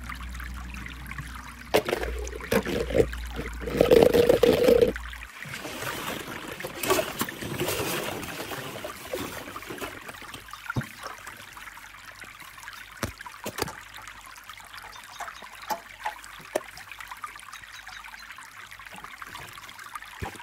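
Hollow plastic play balls rustling and clacking as a hand digs through them, loudest a few seconds in, then thinning out to scattered light clicks.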